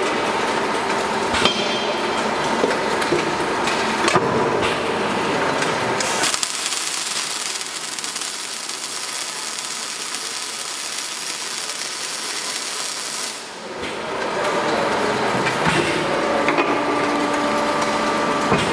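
Automatic handle welding machine at work on a steel LPG cylinder: clattering machine noise with a couple of sharp knocks, then about six seconds in the welding arc strikes and gives a steady hiss for about seven seconds before cutting off, after which the machine noise and a steady hum return.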